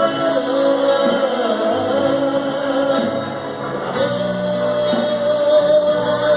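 A band playing a song, with a singer holding long, slightly wavering notes over the accompaniment.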